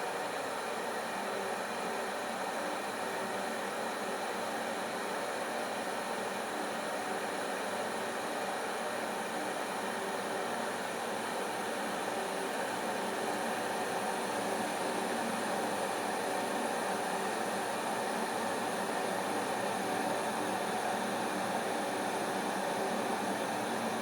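Pot of water heating from the bottom just before it boils, giving a steady rushing hiss as bubbles form on the hot base and rise, growing slightly louder.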